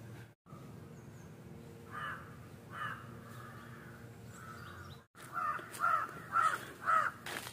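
Crows cawing: a caw about two seconds in and another just before three seconds, then a quick run of about four caws in the last two seconds, over a faint steady hum.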